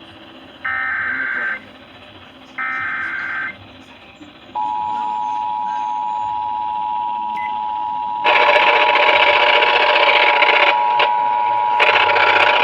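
Emergency Alert System SAME header: two short bursts of warbling data tones about a second apiece, then about four and a half seconds in the steady two-tone EAS attention signal starts and holds. Two loud bursts of hiss, like radio static, cover the tone for a few seconds each in the second half.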